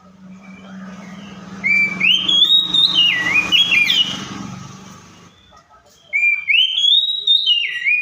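Oriental magpie-robin singing: two similar loud whistled phrases, each sliding up and down in pitch, the second beginning about six seconds in.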